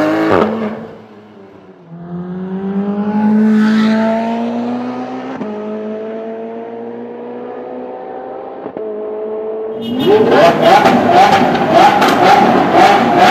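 Supercar engines. First a rev cuts off, then an engine pulls steadily upward in pitch with two gear changes. About ten seconds in, a much louder, rougher engine sound comes in, with rapid crackling pulses.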